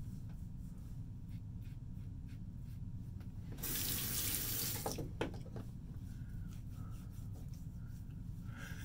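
Bathroom sink tap running for about a second and a half, water rushing into the basin, followed by a couple of short splashes; otherwise a low steady room hum.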